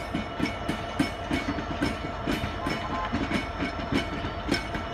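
Freight train of open wagons hauled by a Class 66 diesel locomotive moving slowly: irregular clicking and clanking of wagon wheels over rail joints, two or three knocks a second, over a steady hum.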